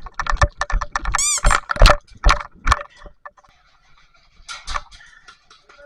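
Airsoft gun firing a rapid string of sharp shots for about three seconds, with a brief rising-and-falling tone a little past one second in. A few more shots come near the end.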